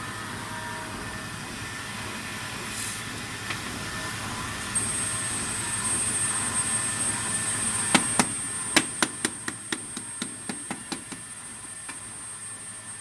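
PCB drilling machine running with a steady hum. A thin high whine joins about five seconds in, and later comes a quick run of a dozen or so sharp clicks over about three seconds, growing fainter.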